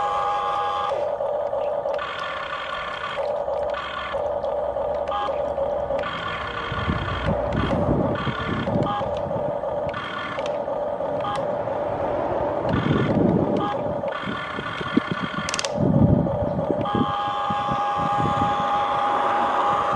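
Small electric motors of a Huina 1593 RC toy excavator whining in stop-start bursts as its functions are worked. In between come a few rough, low rumbles.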